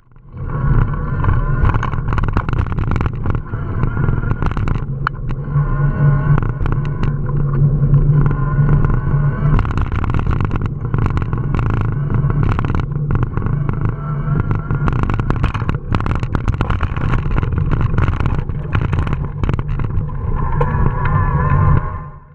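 Riding noise picked up by a camera mounted on an e-bike: steady wind rush and road rumble with frequent small knocks and rattles over rough pavement. It fades in at the start and fades out near the end.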